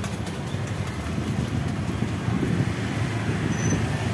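Steady low rumble of road traffic passing close by, with a few faint clicks near the start.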